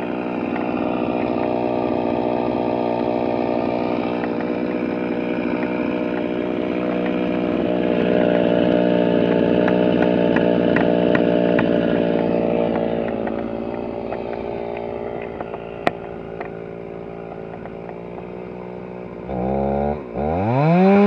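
Stihl chainsaw running at high revs while cutting into a fallen tree trunk, loudest in the middle stretch. There is one sharp click partway through. Near the end the engine pitch drops sharply, then climbs back up to full throttle.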